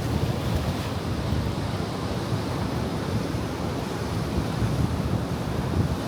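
Ocean surf washing against a rocky shore, a steady low rumble of breaking waves with wind buffeting the microphone.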